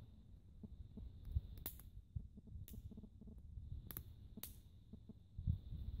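A few sharp snaps of small dry twigs being broken by hand, beside a small wood fire in a folding twig stove, over a low uneven rumble, with a dull thump near the end.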